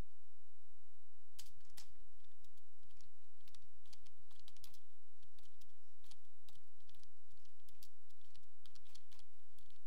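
Typing on a computer keyboard: a run of irregularly spaced keystroke clicks with short pauses between them.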